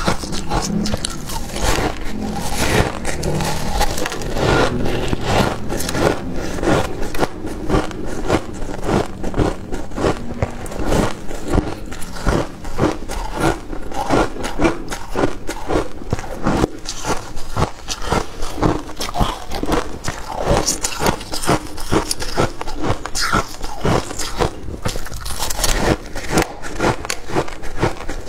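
Freezer frost being bitten and chewed close to the microphone: a dense run of crisp crunches, several a second.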